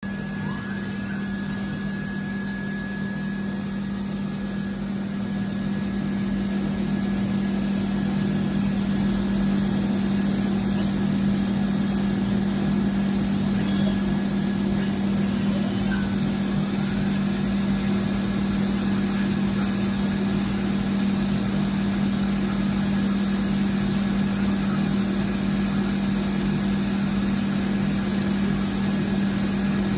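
REWITECH 230 CNC internal grinding machine running while it grinds the bore of a bearing ring: a steady low hum with thin high whines over a hiss. It grows a little louder over the first several seconds.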